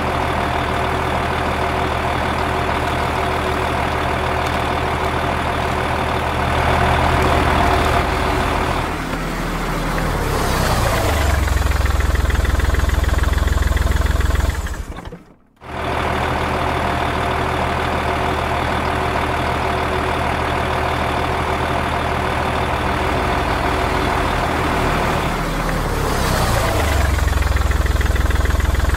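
Recorded engine sound laid over the toy scene: a vehicle engine idling steadily, its pitch shifting around ten seconds in and running louder for a few seconds. It cuts out briefly about fifteen seconds in, then the same idle-and-change sequence plays again as a loop.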